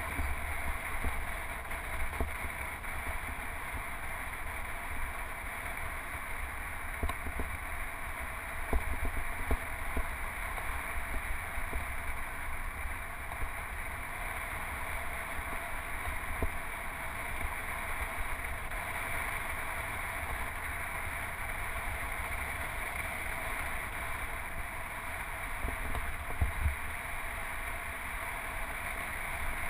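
Wind buffeting the microphone of a handlebar-mounted action camera on a moving road bike, a steady low rumble with tyre and road noise and a few small knocks from bumps in the path.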